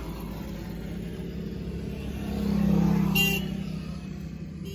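A motor vehicle passing: a low engine rumble that swells to a peak about three seconds in and fades again, with a brief high-pitched sound at the loudest point.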